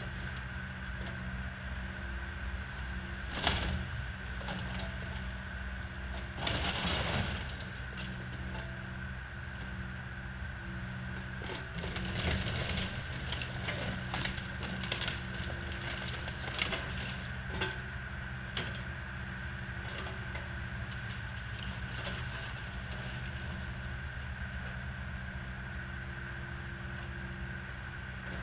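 A John Deere compact excavator tearing apart a mobile home's wooden structure: wood cracking and splintering and debris crashing, loudest about three seconds in and again around seven seconds in, with a run of cracks between about twelve and seventeen seconds in. A steady engine drone runs underneath.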